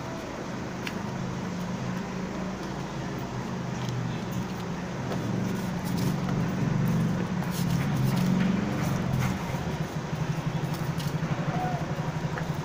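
A motor vehicle engine running in the street, growing louder in the middle and then settling into a fast, even throb like an idle.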